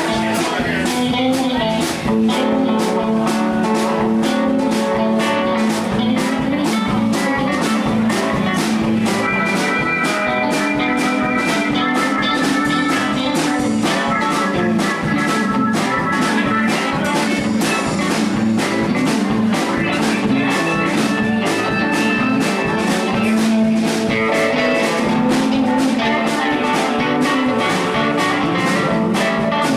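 A live band jamming: electric guitar playing blues-style lines over a steady drum-kit beat.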